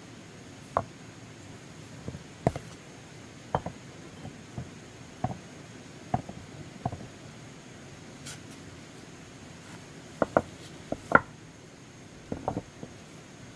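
A series of irregular, sharp knocks and taps of hard objects, about fifteen in all, unevenly spaced, with a denser, louder cluster around ten to eleven seconds in.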